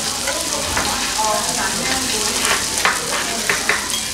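Pork belly (samgyeopsal) sizzling on a tabletop grill: a steady frying hiss, with several sharp pops in the second half.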